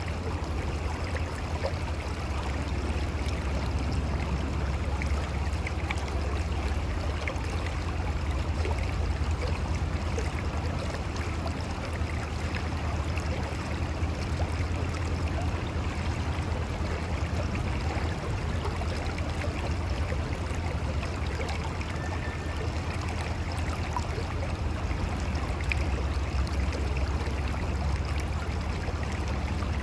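Mountain river flowing steadily over rocks, a continuous rushing and gurgling of water with a low rumble.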